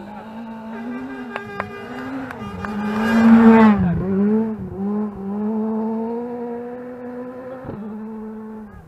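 Rally car on a gravel stage approaching at full throttle, its engine rising and dropping through gear changes, with a few sharp cracks on the way in. It is loudest as it passes close about three and a half seconds in, with a rush of tyre and gravel noise. Then it pulls away, climbing through the gears and fading near the end.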